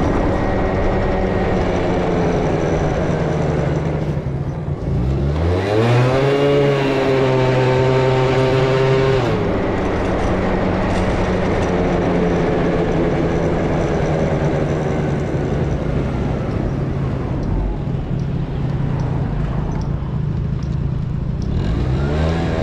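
Yamaha Passol moped with a swapped-in Yamaha Jog engine, heard from on board while riding. The engine runs steadily, drops back about four seconds in, revs up and holds a higher pitch for a few seconds, eases off about nine seconds in, and revs up again near the end.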